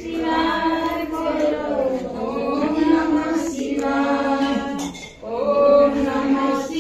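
Women's voices singing a Shiva devotional hymn (bhajan) together, in long held phrases with a short break about five seconds in.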